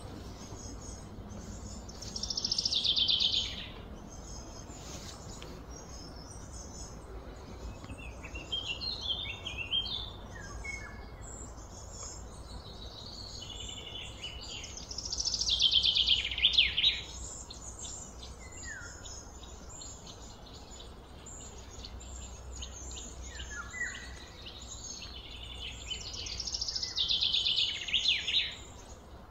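A bird singing: three loud, rapid trilled phrases, each about a second and a half long and roughly twelve seconds apart, with a few shorter chirps between them, over a faint steady low hum.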